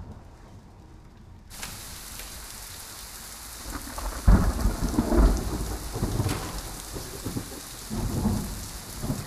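Heavy rain begins pouring suddenly about a second and a half in and keeps up steadily. Thunder rumbles over it, loudest around the middle, and rolls again near the end.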